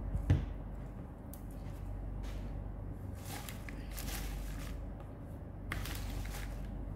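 Hands rummaging through a basin of fresh rocket (arugula) leaves, the leaves rustling in two longer spells in the second half. There is a sharp knock just after the start, and a low steady hum underneath.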